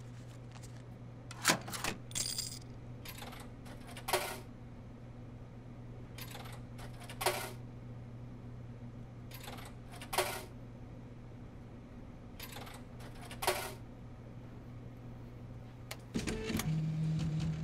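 Food vending machine humming steadily while coins are fed into it, short metallic clinks mostly in pairs every few seconds. About sixteen seconds in, a button press sets off a louder buzz from the machine.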